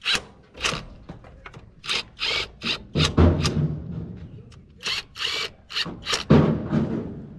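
Cordless drill with a socket extension spinning bolts on top of an excavator's diesel engine, run in a string of short bursts with a few longer runs, during work on the injectors.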